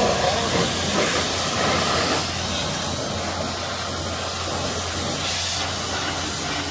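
High-pressure washer wand spraying water into a car's engine bay: a loud, steady hiss of spray with a low steady hum underneath.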